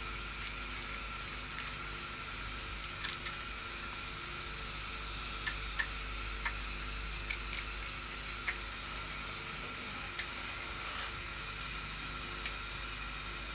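Insects trill steadily on several fixed high notes as a night ambience, with a scattering of sharp, short clicks through the middle.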